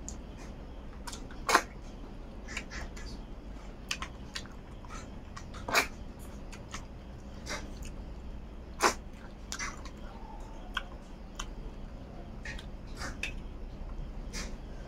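Close-up eating sounds: wet mouth clicks and smacks while chewing rice and snail curry eaten by hand. Three sharp, much louder sucking sounds stand out, spread a few seconds apart, over a faint steady hum.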